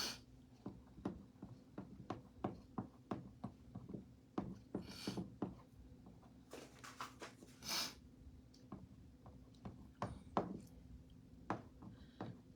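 Light, irregular taps and knocks, a couple each second, from chalk paste being dabbed through a stencil transfer onto a chalkboard, with two brief scrubbing swishes about five and eight seconds in.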